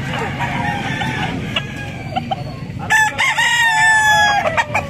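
A gamecock rooster crows once, about three seconds in, with one long held call lasting about a second and a half, over the busy background of the penned birds.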